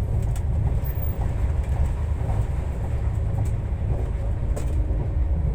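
Train running: a steady low rumble with a few faint clicks.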